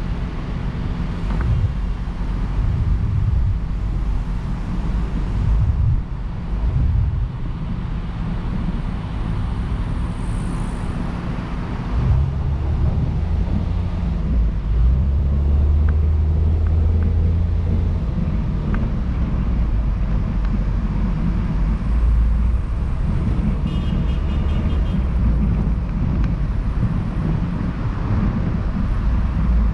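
Car driving along a multi-lane highway: a continuous low rumble of engine and tyre noise, getting somewhat louder about twelve seconds in.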